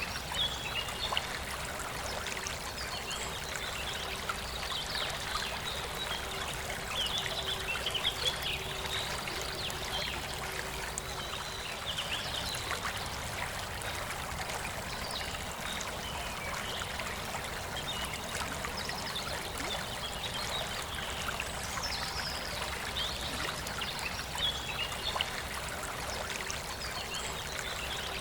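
Forest river flowing in a steady rushing trickle, with birds chirping on and off throughout.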